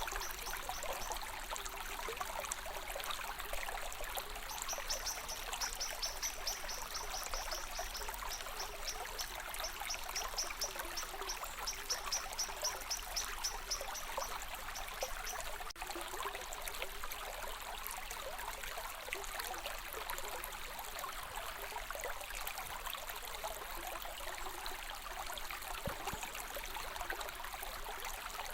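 A stream of water running steadily. For a stretch in the first half, a high, evenly pulsed sound repeats about four times a second over it.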